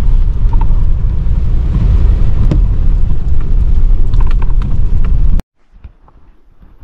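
A pickup truck driving over a rutted, muddy dirt track, heard from inside the cab: a loud, steady low rumble of engine and road noise with a few sharp ticks. The sound cuts off suddenly about five seconds in, leaving only a faint low hum.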